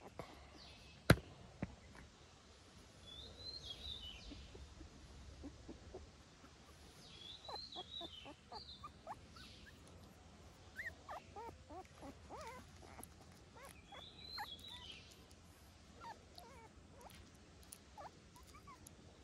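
Faint high chirping animal calls in short warbling runs a few seconds apart, with a single sharp click about a second in.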